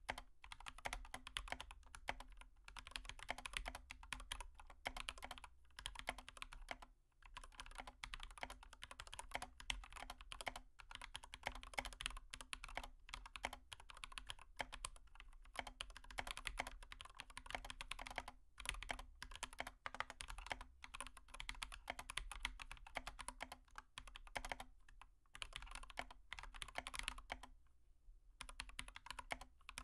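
Faint, rapid, continuous clicking and tapping, like typing on a keyboard, with short pauses every few seconds, over a faint low hum.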